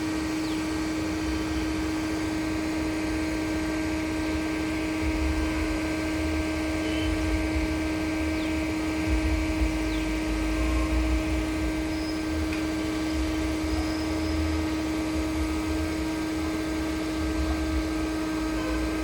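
Concrete pump running steadily: a constant machine hum with a low rumble that swells now and then.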